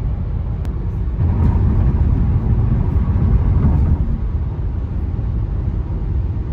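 Tyre and road rumble with wind noise heard inside a Volvo S90's cabin at 75 mph on old asphalt: a steady low rumble that swells a little from about a second in to about four seconds.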